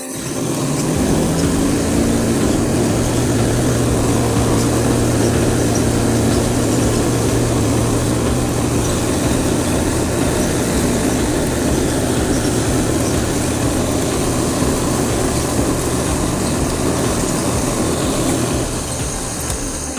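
Cotton candy machine running, its spinning head giving a steady mechanical whir with a low hum underneath as floss builds up in the bowl.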